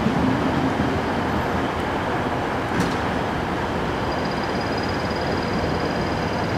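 Steady rumble of vehicle noise, with a brief click about three seconds in and a thin, faint high whine setting in about four seconds in.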